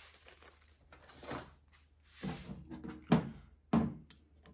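Metal fuel pump and screwdriver handled on a steel workbench: a run of short knocks and scrapes, the two sharpest a little after three seconds in, as the screw holding a cork gasket is being started.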